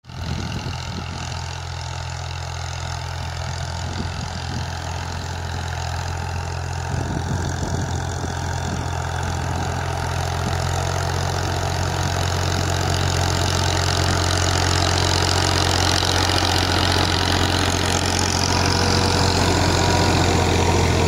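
Tractor diesel engine running steadily under load as it pulls a seed drill, growing louder as it draws near and passing close by near the end.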